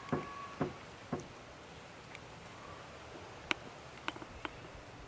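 Motor oil glugging out of a plastic quart bottle into a funnel: a few faint, scattered pops and clicks over a quiet hiss.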